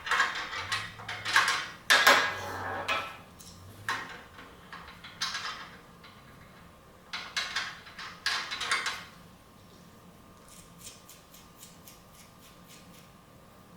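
Clatter of a table saw's repetitive-cut fence attachment and its screws being handled: a string of knocks and scrapes of metal and plastic parts through the first nine seconds, then a few faint light ticks.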